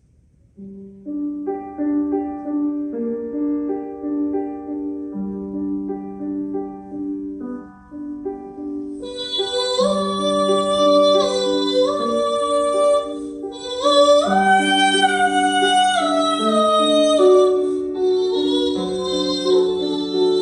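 Music: a gentle instrumental accompaniment of short, steady notes starts about half a second in, and a woman's singing voice joins about halfway through.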